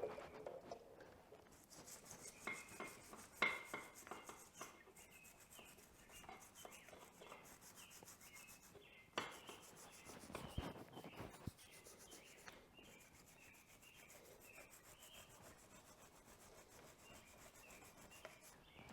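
Plastic-bristle brush scrubbing caked dirt off a dirt bike's rear brake caliper in quick, even, faint strokes. Two sharper knocks come a few seconds in and about halfway through. A bird repeats a short chirp in the background.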